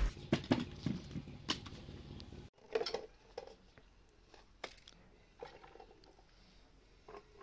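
Scattered light knocks and clicks from kitchenware being handled. There is an abrupt cut about two and a half seconds in, after which the taps come sparser and fainter.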